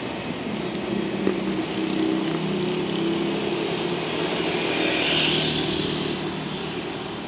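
EF210 electric freight locomotive with two flat cars running away on the main line: a steady rumble with a low hum, easing off near the end.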